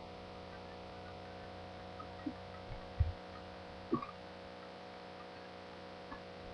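A steady electrical hum of several even tones, with a few faint soft knocks about two, three and four seconds in.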